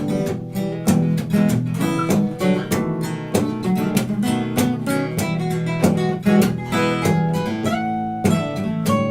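Acoustic guitar instrumental break: steady strummed chords under quick picked single notes, with a few notes bent or slid upward late on.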